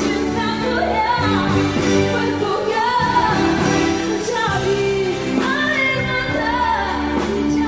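A woman singing into a microphone over band accompaniment.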